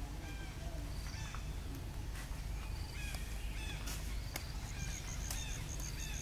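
Many short, high chirping animal calls at irregular intervals over a steady low rumble. About three-quarters of the way through, a fast, even, pulsing high trill joins in.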